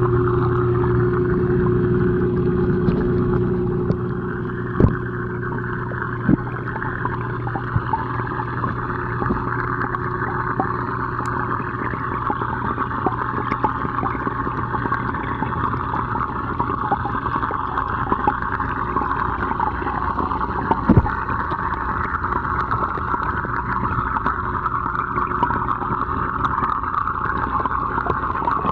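Steady hiss and bubbling of aquarium water full of air bubbles, with a low pump-like hum that drops away about four seconds in. A few short knocks stand out.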